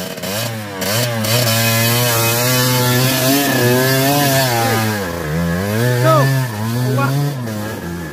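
Dirt bike engine running under throttle on a trail, its revs wavering up and down. The revs drop low about five seconds in and again a second later, then pick back up.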